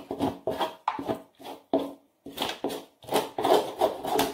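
A metal pan being scraped out, emptying sticky peanut caramel onto a metal tray: quick repeated scraping strokes, about three a second, with the pan ringing in each stroke.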